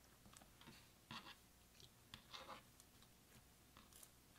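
Clear slime being pressed and folded by hand over crushed eyeshadow and glitter, giving quiet, irregular sticky crackles, the strongest about a second in and again around two and a half seconds.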